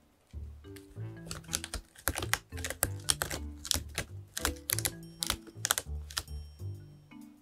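A cat digging in its litter box, its paws scraping through the litter in a quick run of scratching strokes starting about a second in, over soft background music.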